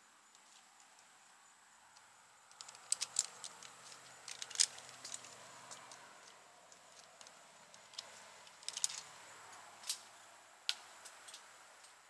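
Climbing hardware and rope being handled by a tree climber: scattered sharp metallic clicks and clinks, a quick cluster about three to five seconds in, then a few single ones near the end.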